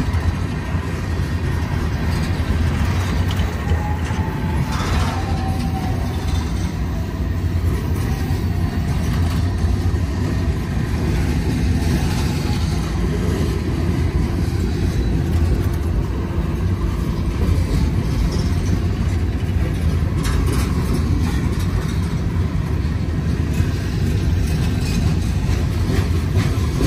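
Boxcars of a manifest freight train rolling past at track side: a steady rumble of steel wheels on rail joints. A few faint brief squeals and clanks come through, about a third of the way in and again a little past two thirds.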